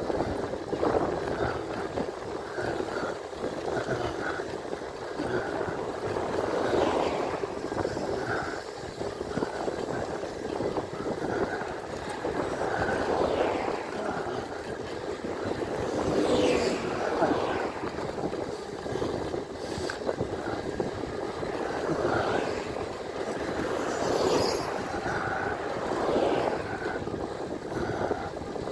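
Wind rushing and buffeting over the microphone of an e-bike's handlebar camera while riding, mixed with tyre noise on the road, swelling and easing in gusts.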